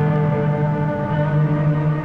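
Background soundtrack music: sustained held notes over a steady low tone, with no clear beat.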